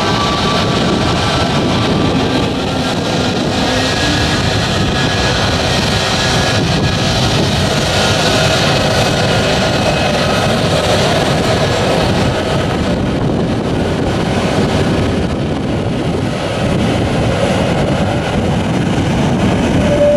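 CFM LEAP-1A turbofans of an Airbus A321neo running at taxi power as the airliner rolls past: a steady jet roar with a faint whine on top.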